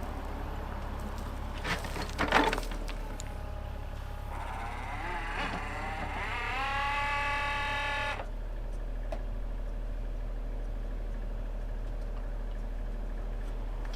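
Mini excavator running steadily while backfilling a cable trench, with a few sharp knocks about two seconds in and a whine rising in pitch from about four seconds in that cuts off suddenly near eight seconds.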